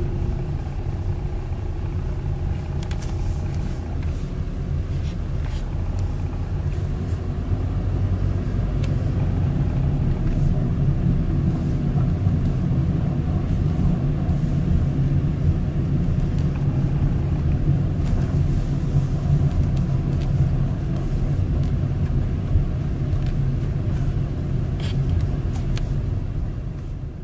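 Car driving, heard from inside the cabin: a steady low rumble of engine and road noise, with a few light clicks.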